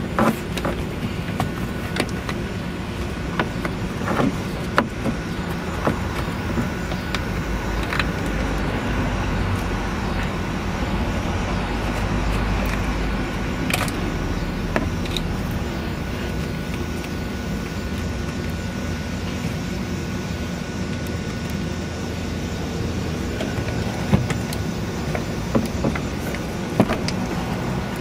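Scattered clicks, taps and rubbing as a wire wrapped on a flathead screwdriver is worked through a rubber wiring boot under a truck's dashboard, over a steady low rumble.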